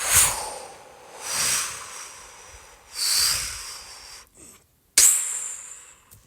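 Dubbed-in fight sound effects: four hissing, whoosh-like bursts, roughly one every one and a half to two seconds, each dying away; the first and last start sharply.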